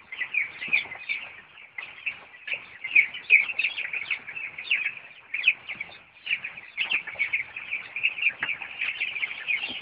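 A large flock of young chicks peeping, a dense chorus of short high cheeps overlapping without pause.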